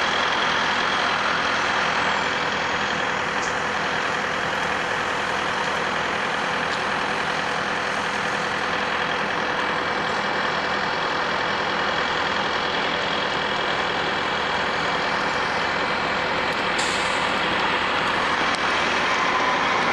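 Skid steer engine running steadily, a constant mechanical drone with no break.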